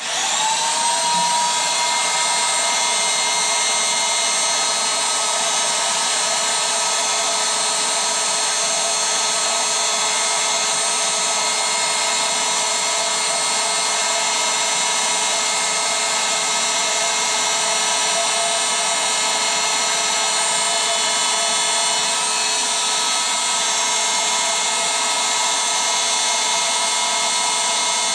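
Electric air pump switching on to inflate an inflatable: its motor spins up with a quick rising whine, then runs steadily.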